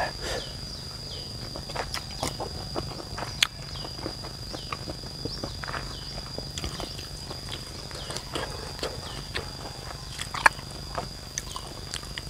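A steady, high-pitched insect call with small regularly repeating chirps, over the sounds of eating: chewing and sharp mouth clicks, and a wooden spoon scraping in a stone mortar.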